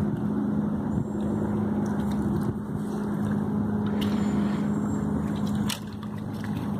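A steady low engine hum, which drops off near the end, with a few sharp snaps of dry driftwood sticks as the dog steps among them.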